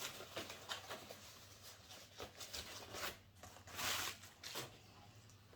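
Camera packaging being handled and unwrapped: scattered rustling, rubbing and small clicks, the loudest a longer rustle about four seconds in.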